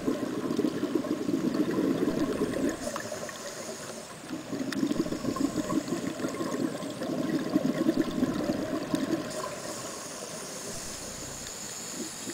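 A scuba diver breathing through a regulator, heard underwater: long rushes of exhaled bubbles alternate with a hissing inhale, about three breaths over the stretch.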